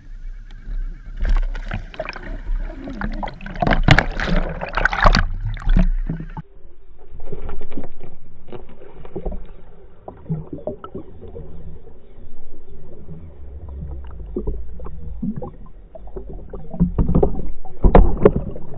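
Water splashing and sloshing with gurgling and scattered knocks, heard through a camera held in the water. The loudest splashing comes in the first few seconds and again near the end.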